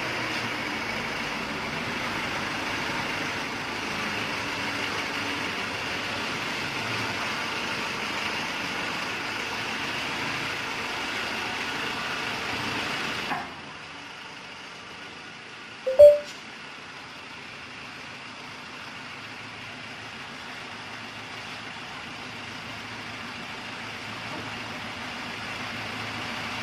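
Large diesel generator set with a Shanghai 12V135BZLD1 V12 engine running steadily. About halfway through, the sound drops suddenly to a quieter steady running, and a single sharp click follows a few seconds later.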